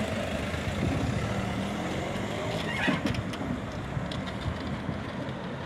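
Car pulling away with a boat trailer in tow: steady engine and tyre rumble, with a few light clicks about three seconds in.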